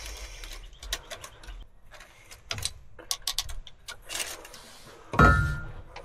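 Hands and tools working at the open end of a pump motor, around its blown start capacitor: scattered small clicks and taps, then one loud clatter with a brief ring about five seconds in.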